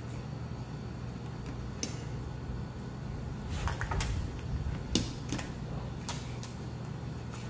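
Cooked lobster shell being pulled apart and cracked by hand: a handful of short, sharp cracks and clicks, the loudest about five seconds in, over a steady low hum.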